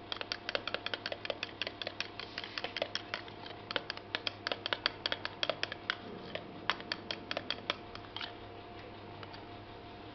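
Fork beating a raw egg in a small plastic bowl: rapid, uneven clicking of the tines against the bowl, stopping about eight seconds in.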